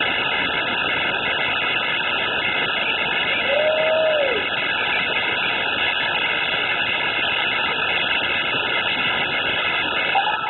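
Hailstones about the size of gumballs falling in great numbers, a dense, steady hiss of countless small impacts. A short tone rises and falls about three and a half seconds in.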